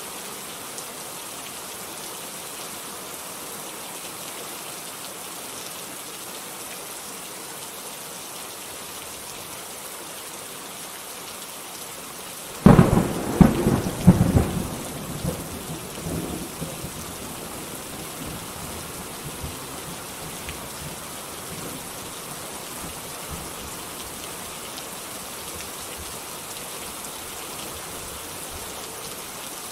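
Steady heavy rain. About twelve seconds in comes a close thunderclap: a sudden sharp crack followed by several more cracks over a couple of seconds, then a rumble that dies away.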